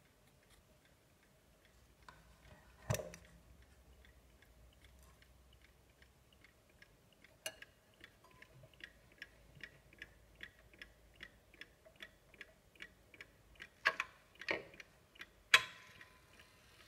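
Junghans mechanical mantel clock ticking steadily at about two ticks a second, faint at first and clearer in the second half. A few louder clicks and knocks come from the clock being handled and its minute hand set to the hour, one about three seconds in and several near the end.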